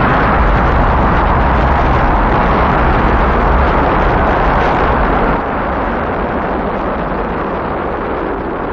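Rocket engines firing at liftoff: a loud, steady rush of noise over a deep rumble, dropping a little in level about five seconds in.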